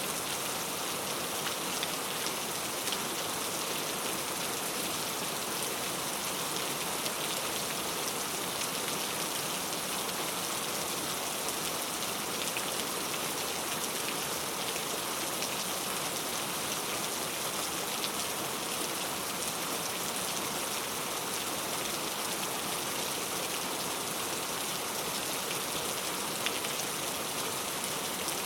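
Steady rain falling, an even hiss with scattered small drop ticks on surfaces.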